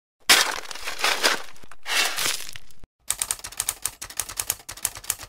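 A scraping, rustling noise for about two and a half seconds. About three seconds in, typewriter keys start clacking in a quick, even run of several strikes a second.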